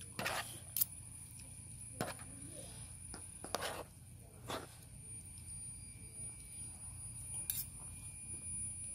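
Metal fork and spoon clinking and scraping on a plastic tray of rice, about six separate clicks spread over the several seconds, over a faint steady high whine.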